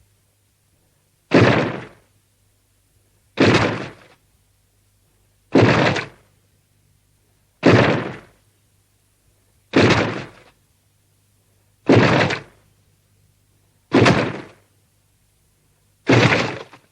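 Hedorah sound effect from the 1971 Godzilla film: the same heavy, sudden hit repeated eight times, about every two seconds, each fading out in under a second, over a faint low hum.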